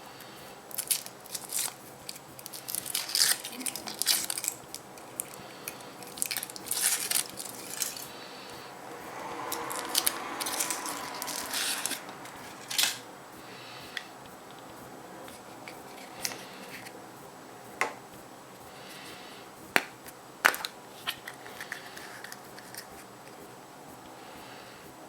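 Foil wrapper of a Kinder Surprise chocolate egg crinkling and crackling as it is peeled off and the egg is opened, then a few separate sharp clicks in the second half.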